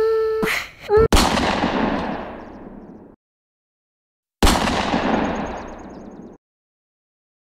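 Two loud blasts about three seconds apart, like gunshots or explosions, each a sharp crack with a long fading hiss that cuts off abruptly into dead silence. Before the first, a steady humming tone breaks off. The hard cut-offs mark them as edited intro sound effects.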